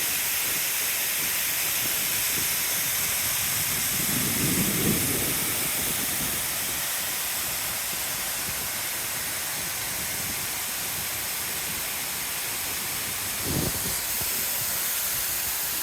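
Waterfall rushing: a steady, even hiss of falling water. Two brief low bumps rise out of it, one about four seconds in and one near the end.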